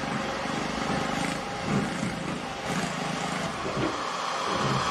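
Kobelco hydraulic excavator's diesel engine running as it digs, its low note shifting unevenly over a steady background of site noise.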